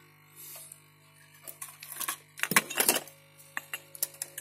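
Metal clicks and rattles of a disassembled LCD monitor's sheet-steel bracket and chassis being handled and lifted. A soft rustle comes about half a second in, then scattered sharp clicks with a dense clatter around two and a half to three seconds in, over a faint steady hum.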